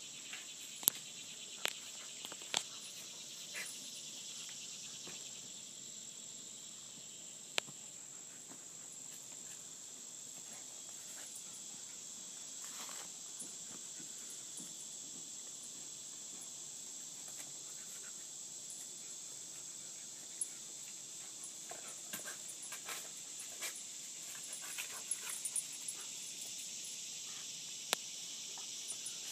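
A steady high-pitched insect chorus, with scattered sharp clicks and knocks as a dog noses and paws at a turtle's hard shell among dry leaves. The clicks come a few at a time near the start and more often toward the end.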